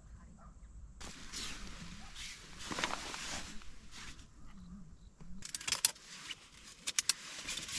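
Rustling handling noise, then a quick run of sharp crinkling clicks over the last couple of seconds.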